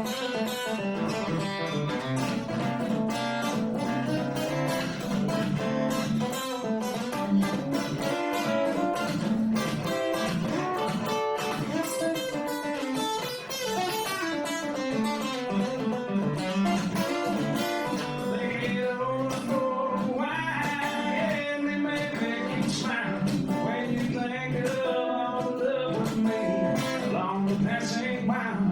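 Guitar playing an instrumental break in a blues-country song: quick picked single notes over chords, without pause.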